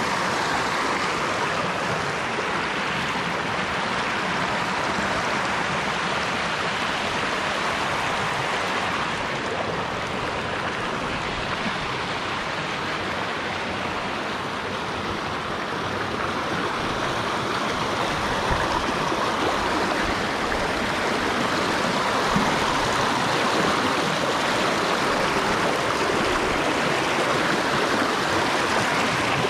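River rapids rushing over and between rocks: a steady, even rush of water that grows a little louder about halfway through.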